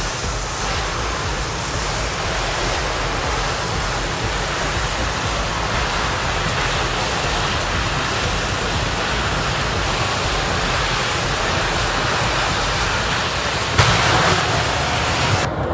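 Jet engine of a jet-powered pickup truck running with flames blasting from its exhaust stacks, a loud, steady rush of noise. It surges louder about fourteen seconds in as a big burst of flame and smoke comes out, then cuts off suddenly.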